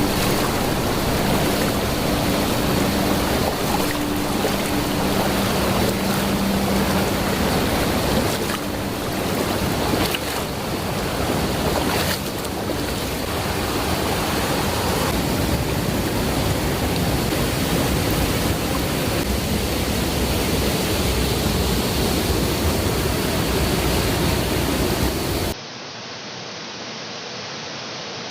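Steady roar of water falling and rushing at a waterfall. Near the end it suddenly drops to a quieter, duller rush.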